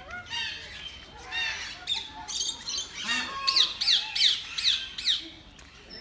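Parrots squawking and calling in a busy aviary, many short high calls overlapping. About three and a half seconds in comes a quick run of about five sharp, falling squawks.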